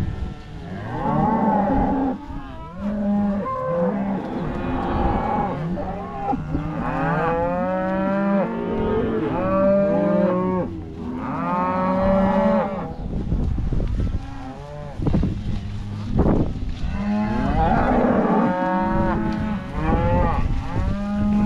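A herd of beef cattle mooing, many calls overlapping one after another with hardly a break, several animals calling at once.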